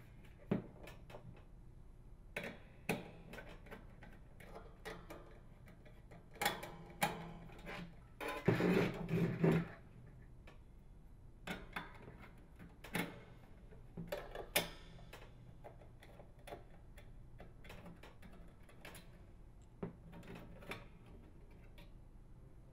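Faint clicks and clinks of a nut driver turning out the small hex-head screws from a bath fan heater's sheet-metal cover. Loose parts are handled between the clicks, with a longer burst of metal handling noise about eight to ten seconds in.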